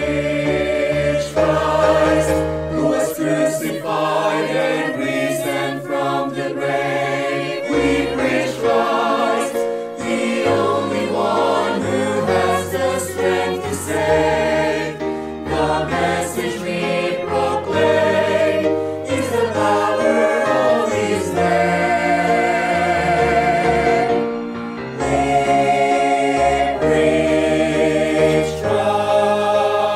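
Background Christian music: a choir singing a hymn in sustained, changing chords.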